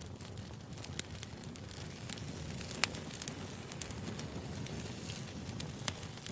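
Wood fire burning with frequent irregular crackles and a steady low rumble of flame; two sharper pops stand out, about three seconds in and near the end.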